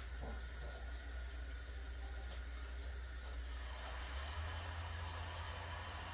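Steady hiss with a low hum underneath; the hum shifts slightly about four seconds in.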